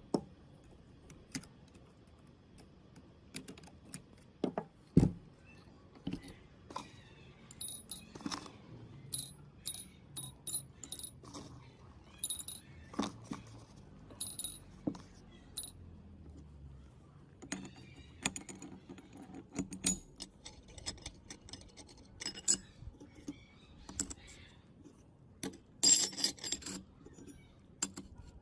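Small metal parts being handled, clinking and tapping against each other and against metal in an irregular series of sharp clinks, some with a short ringing tone, with a louder flurry of clinks near the end.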